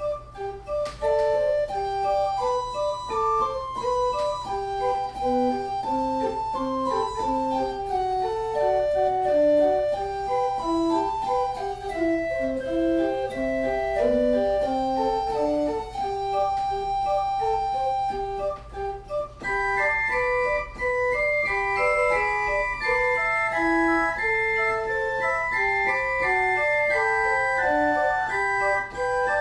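1969 Wicks pipe organ played on its manuals: a flowing line of sustained notes over a steady low tone. About twenty seconds in, the music moves into a higher register.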